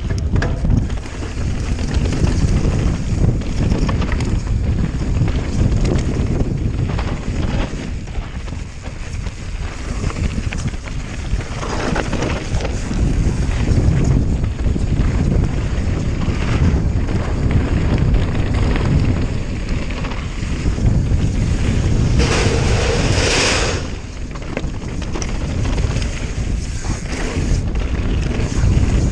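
Wind buffeting the microphone as a mountain bike rolls fast down a gravel singletrack, over a continuous rumble of tyres on loose stone and the bike rattling. About three-quarters of the way through, a brighter hiss lasts for a second or so.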